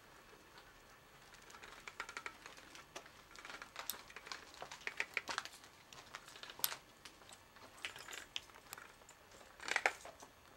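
Footsteps crunching and crackling in an irregular run of sharp little clicks, with a denser cluster near the end.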